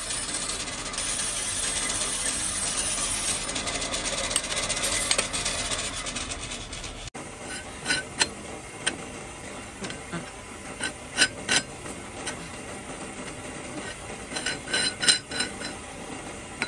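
Steady rasping, scraping noise of tool work that stops abruptly about seven seconds in. It is followed by a quieter run of scattered light clicks and taps, some with a short metallic ring, in small clusters.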